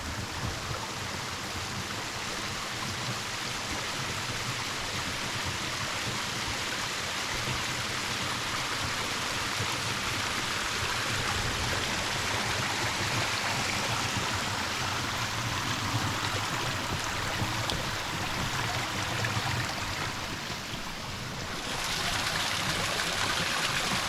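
Steady rushing of a mountain stream or small waterfall. The sound shifts slightly about 21 seconds in.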